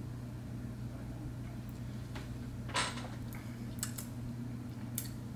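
Someone sipping and tasting a drink from a glass: a few faint, short mouth and glass sounds over a steady low hum, the clearest nearly three seconds in.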